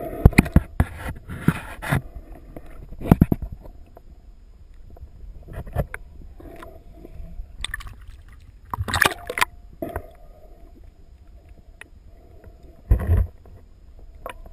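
Sea water splashing and sloshing around a handheld camera at the surface, switching between above-water and underwater sound. Sharp, loud splashes come in a cluster in the first two seconds and again about three, nine and thirteen seconds in, over a low gurgling wash.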